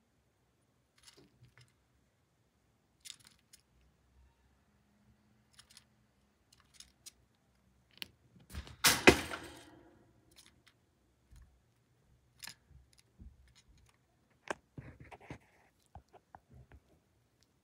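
Chipmunk gnawing at a chestnut: scattered small clicks and crunches, with one loud crack about nine seconds in.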